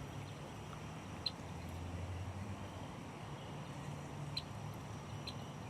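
Outdoor waterside ambience: a low steady hum with a few short, high bird chirps scattered through it.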